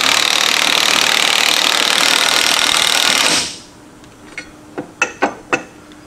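Cordless impact wrench hammering steadily on a differential pinion nut, crushing the crush sleeve to set pinion bearing preload; it stops after about three and a half seconds, and a few light metallic clicks follow.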